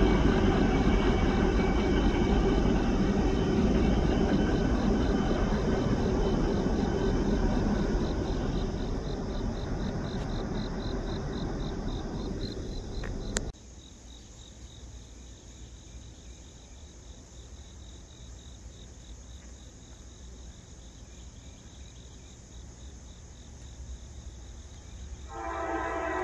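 Freight train rumbling and slowly fading as it pulls away. After an abrupt cut it is quiet but for insects chirping in a steady pulse, and near the end a locomotive's air horn starts to blow.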